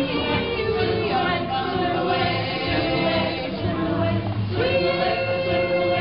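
Music: a song with several voices singing together in long held notes.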